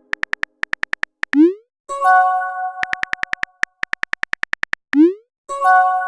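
Phone messaging sound effects: a quick run of keyboard tap clicks, a short rising swoosh as a message is sent, then a chiming notification tone. The sequence plays twice.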